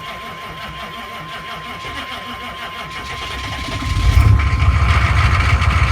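Cold start of a 6.5-litre V8 diesel: the starter cranks it over rhythmically for about four seconds on tired batteries, then the engine catches with a jump in loudness and settles into running.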